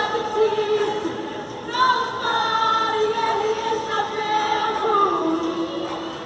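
A group of voices singing a church hymn together, slow with long held notes.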